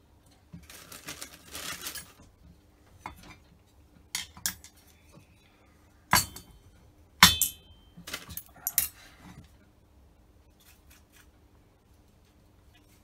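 Screwdriver and metal parts of a Holley four-barrel carburettor clinking and knocking on a workbench during disassembly. A scratchy scrape comes in the first two seconds, then scattered sharp metallic clinks, the loudest a short ringing clink a little after the middle.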